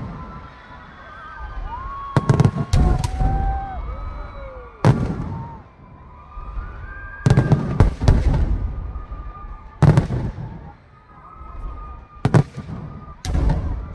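Aerial fireworks bursting: a string of loud, sharp bangs, with a quick run of three or four about two seconds in, another cluster in the middle, and single bangs near the end. Each bang is followed by a low rumble.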